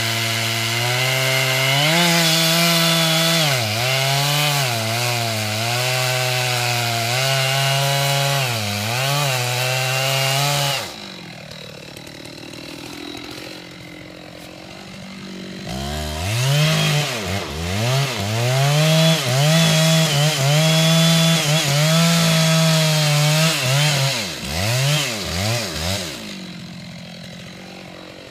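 Two-stroke chainsaw cutting into the trunk of a large red oak, its engine speed dipping again and again as the chain bites. About eleven seconds in it drops to a low idle, then revs up and cuts again for about ten seconds before dropping back to idle near the end.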